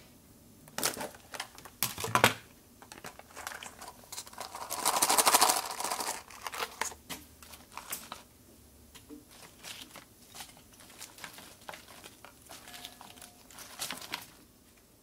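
A clear plastic salad container being opened, its lid crackling and crinkling, with a longer, louder crackle about five seconds in. Then romaine lettuce leaves being pulled from their cores by hand over the plastic tray: small crisp snaps and rustles.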